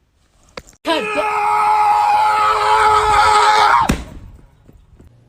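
A cat's long, loud yowl, held at one steady pitch for about three seconds, then sliding down and stopping abruptly.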